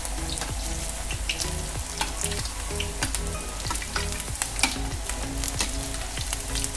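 Batter-coated cabbage pakoda fritters deep-frying in hot oil in a kadhai, a steady sizzle with constant crackling, while a metal slotted spoon stirs and turns them in the oil.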